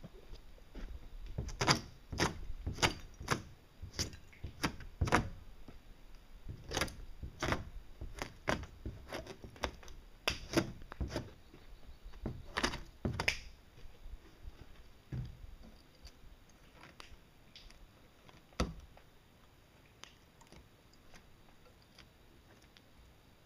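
Footsteps of rubber boots on dirt ground: an uneven run of thuds about half a second apart that dies away about halfway through, with one more thud later.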